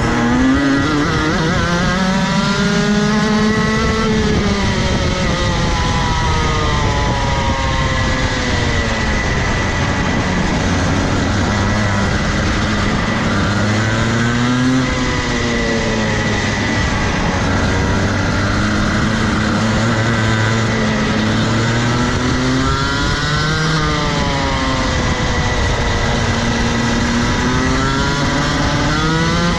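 Rotax Max Evo 125cc single-cylinder two-stroke kart engine at race pace, its pitch climbing and dropping several times as the driver accelerates out of corners and lifts into them.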